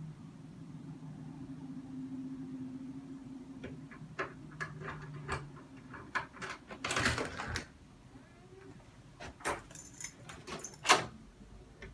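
Keys jangling and clicking at the door lock, then the latch clicking as a door swings open. Under the first half runs a low steady hum that stops about five seconds in.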